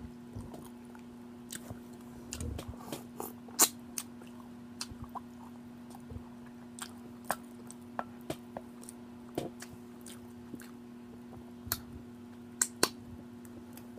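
Close-miked chewing and lip-smacking: irregular wet mouth clicks and smacks scattered throughout, a few sharper ones standing out. A steady low hum sits underneath.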